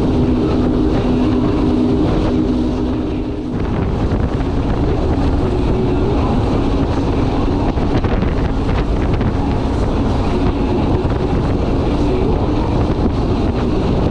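Powerboat engines running at speed, with wind buffeting the microphone. A steady engine drone gives way to a rougher, noisier rumble about three and a half seconds in.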